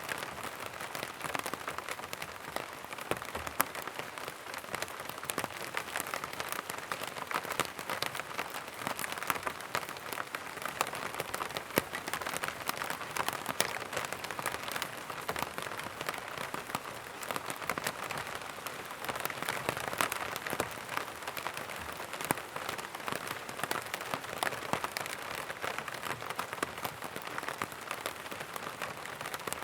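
Steady rain falling and pattering on surfaces, a dense even hiss of many small drop impacts with no thunder.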